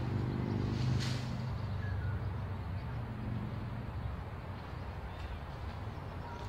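Low, steady hum of an engine running, strongest in the first second and a half and then fainter, with a brief sharp noise about a second in.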